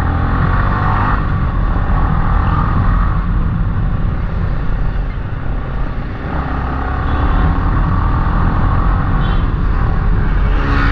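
Motorcycle riding along: engine running under heavy wind buffeting on the action camera's microphone. The sound eases off about five seconds in and builds again a second later.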